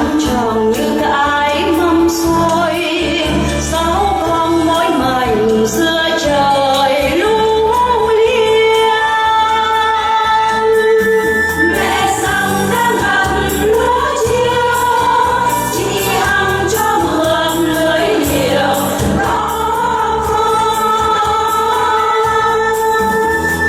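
A group of voices singing together as a choir over an instrumental backing with a steady bass beat.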